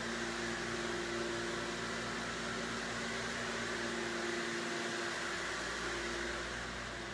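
A steady mechanical hum: an even rushing noise with two low steady tones underneath.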